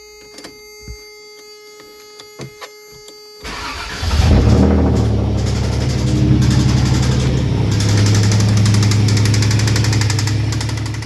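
A worn Toyota engine cranks and catches about three and a half seconds in, then runs with a fast, even knock: rod knock from rod bearings worn through. Before it starts, a faint steady tone with a few clicks.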